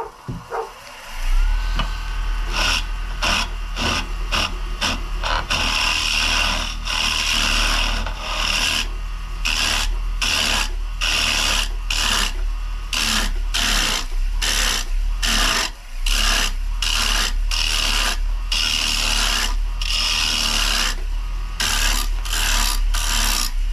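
Rockler 10x18 wood lathe starting up about a second in and running with a steady low hum, while sandpaper is pressed against the spinning maple bowl in repeated rasping passes.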